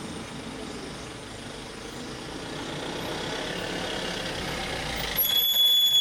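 A motor vehicle's engine running and growing louder, then a sudden loud, high-pitched steady squeal near the end.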